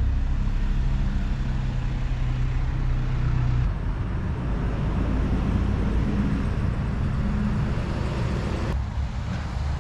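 Steady low rumble of road traffic, with a low engine hum in it; the sound shifts abruptly about four seconds in and again near the end.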